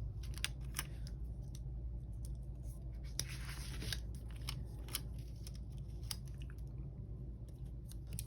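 Scissors snipping sticker paper: a few irregular sharp snips, with a short stretch of paper rustling in the middle.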